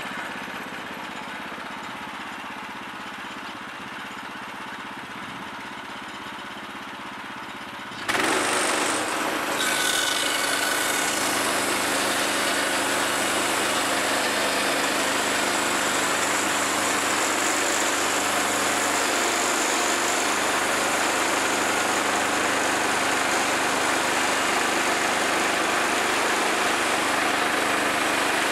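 Woodland Mills portable bandsaw mill's small gas engine running at low speed, then about eight seconds in it suddenly goes to full throttle and runs loud and steady, with the band blade driven hard.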